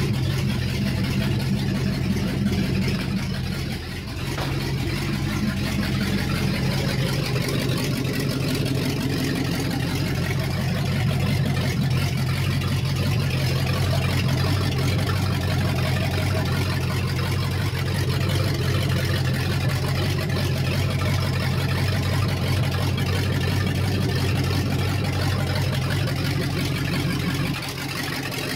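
1957 Plymouth Belvedere's engine idling steadily, very noisy with no exhaust system fitted. There is a brief dip in loudness about four seconds in.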